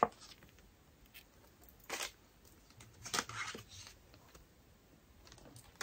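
A few short rustles and scrapes of paper photo cards and their packaging being handled and sorted.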